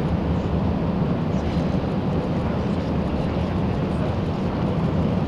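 Steady low rumble of background noise, with no distinct events standing out.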